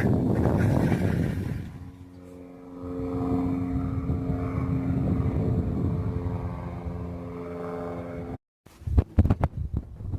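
Propeller airplane flying overhead with a steady droning hum, after about two seconds of wind buffeting the microphone. Near the end the sound drops out briefly, then a run of sharp knocks follows.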